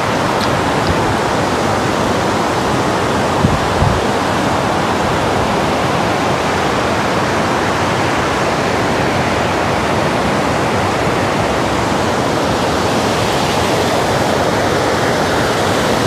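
Loud, steady rush of white water from a rocky, stepped waterfall in strong monsoon flow, with two brief low bumps about four seconds in.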